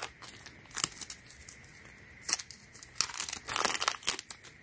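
Thin clear plastic jewellery bag crinkling in several short bursts as a hoop earring is worked out of it.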